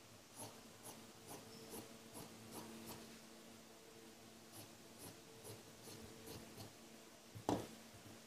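Scissors snipping through fabric, a series of faint snips at about two a second with a short pause in the middle, then a single louder knock near the end.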